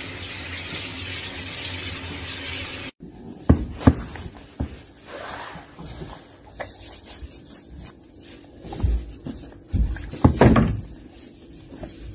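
A handheld shower head spraying water, a steady hiss that cuts off suddenly about three seconds in. After that come scattered knocks, bumps and rubbing handling noises.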